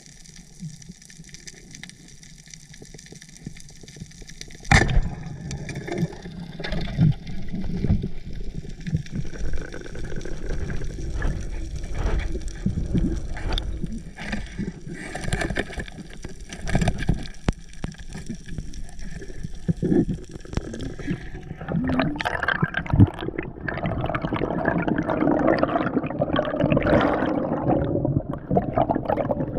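Underwater knocks and scrapes of a spear against reef rock, with one sharp knock about five seconds in. From about twenty-two seconds in, a dense gurgle of air bubbles rushes past as the diver rises.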